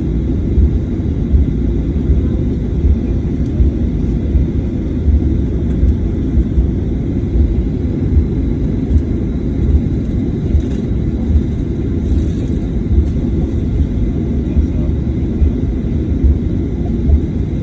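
Steady low rumble of a Boeing 737-800's CFM56 engines and airflow heard inside the passenger cabin, with a faint steady whine riding above it.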